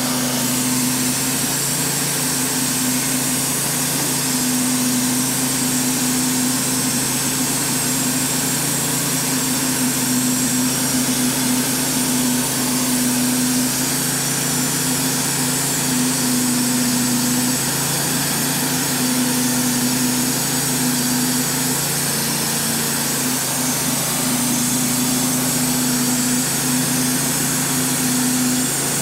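Wood-Mizer LT35HD band sawmill's engine running steadily at speed, an even hum with no breaks; its note dips slightly about two-thirds of the way through.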